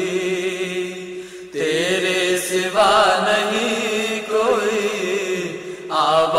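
Male voice singing an Urdu devotional nazm in long, wavering held notes, with a short break about a second and a half in.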